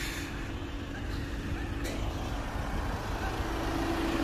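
Motor vehicle engine running with a steady low rumble, and a single short click about two seconds in.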